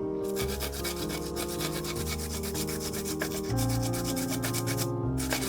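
Kencur (aromatic ginger) root being grated on a traditional wooden grater: quick, repeated rasping scrapes, with a short pause near the end. Background music with sustained notes plays underneath.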